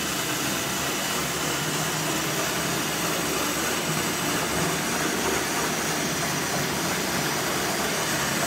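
RotoVac 360i rotary carpet-extraction tool running over carpet, its vacuum suction through the head and hose making a steady, even rushing noise.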